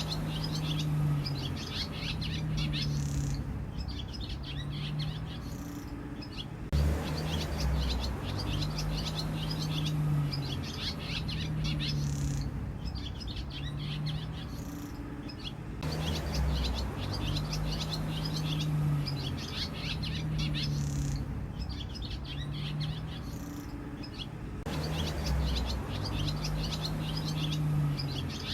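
Barn swallows twittering: quick, chattering runs of high chirps with short pauses between them, over a low steady drone.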